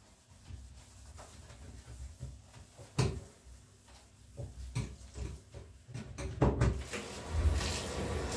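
Scattered knocks and clicks of household objects being handled and set down, the loudest about three seconds in, with a cluster near the end. A steady rushing noise then starts about seven seconds in.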